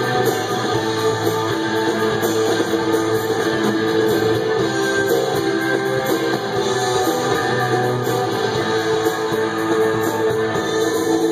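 Live rock band playing an instrumental passage: amplified electric guitars strumming over drums, with no singing.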